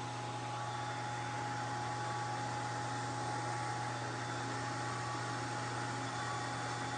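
Electric motor spinning a GM three-wire alternator on a bench rig, running steadily with a hum and a thin constant whine. The alternator's exciter wire is unpowered, so it is turning without charging.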